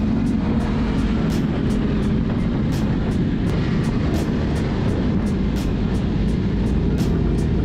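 Sport motorcycle running at a steady speed with wind rush, under music with a regular high ticking beat.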